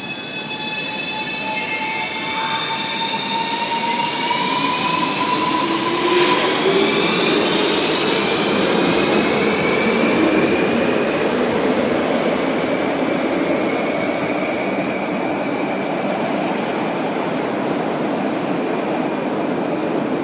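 Renfe Cercanías electric commuter train pulling out of an underground station. A whine of several tones climbs in pitch as it gathers speed through the first six seconds, over loud wheel-and-rail rumble that goes on as the train runs into the tunnel. There is one sharp click about six seconds in.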